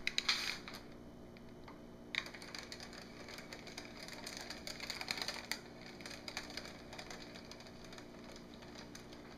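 Faint, irregular light clicks and taps from a plastic tub being tipped and handled while thick soap batter is poured from it into a wooden loaf mold, over a low steady hum. A sharper click comes about two seconds in.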